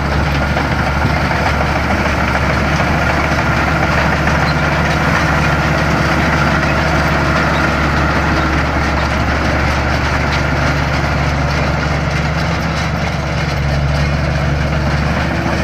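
Combine harvester's Mitsubishi 6D16 turbo-diesel engine running steadily, a continuous low drone with the harvester's machinery noise over it.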